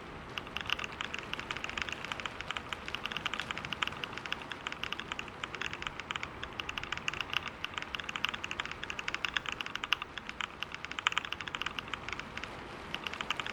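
Computer keyboard being typed on rapidly and continuously, a dense stream of key clicks from fast touch-typing at about 125 words per minute.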